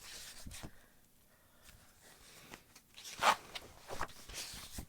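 Paper rustling as the pages of a booklet are handled and turned, in a few short bursts.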